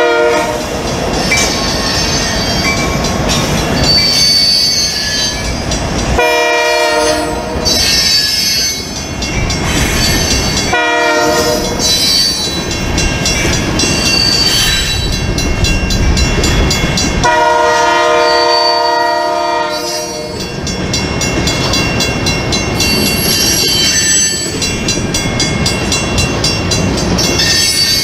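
Freight train rolling past, a steady rumble and clatter of loaded grain hopper cars on the rails. A locomotive horn sounds three times: a long blast about six seconds in, a short one about eleven seconds in, and a longer one from about seventeen to twenty seconds.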